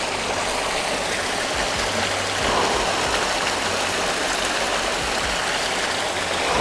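Waterfall and stream water rushing over rocks: a steady, even rush that gets a little louder about two and a half seconds in.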